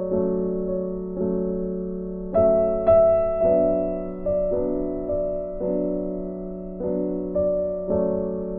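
Background music: slow piano or electric-piano chords, struck one after another, each ringing on and fading, with a brighter, louder chord about two and a half seconds in.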